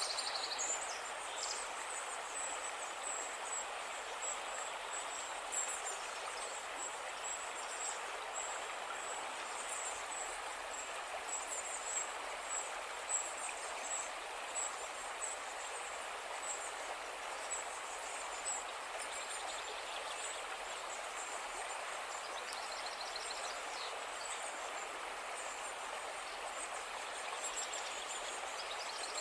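River water flowing steadily, with high, thin chirping calls repeating over it throughout.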